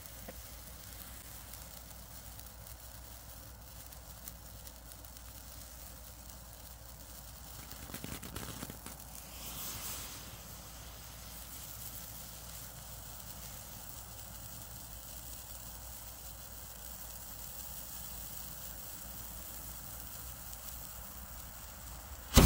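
A slow-burning sparkler fuse sizzling steadily, louder for a spell about eight to ten seconds in. At the very end it sets off the charge with one sharp, loud blast that blows the top off.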